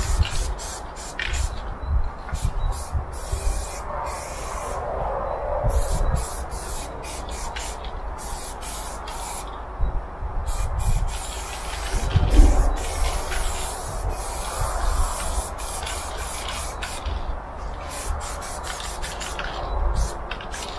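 Aerosol spray paint can hissing in short strokes that start and stop many times, with a few pauses of about a second.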